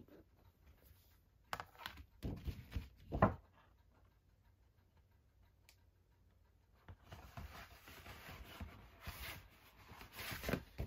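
Soft rubbing and scraping from a vinyl record and its sleeve being handled and laid on a floor: a few short scuffs with the loudest about three seconds in, a quiet spell of a few seconds, then more light handling near the end.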